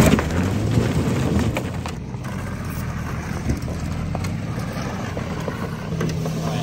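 Acura TL's 3.2-litre VTEC V6 running as the car drives over gravel and mud, a steady low engine drone with the rough noise of the tyres. About six seconds in, a steadier, higher hum sets in.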